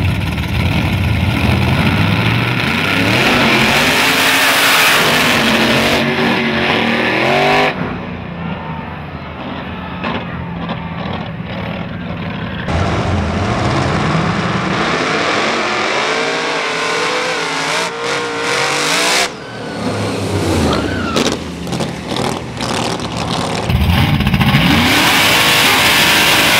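Drag-racing pickup truck engines revving hard at the starting line and launching, their pitch rising and falling over and over, in several short clips that switch abruptly.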